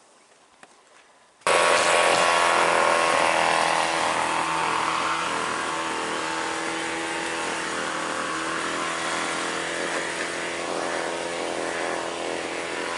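A small engine or power tool running steadily at a fixed speed. It starts abruptly about a second and a half in and cuts off sharply at the end.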